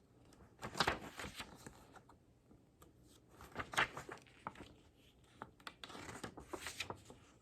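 Pages of a paper CD booklet being flipped through, giving quick papery rustles in three short bursts: about a second in, near the middle and near the end.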